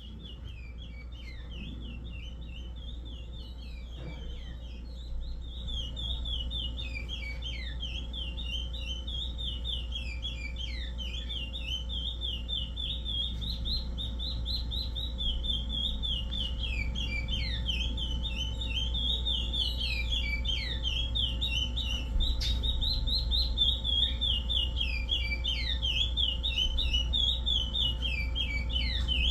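A curió (chestnut-bellied seed finch) singing a continuous Paracambi-style song: quick clear whistled notes, many sliding downward, strung together without a break and growing gradually louder.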